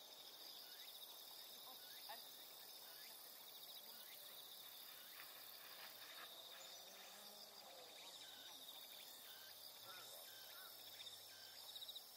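Faint insects trilling steadily at one high pitch, with a few faint short chirps scattered through.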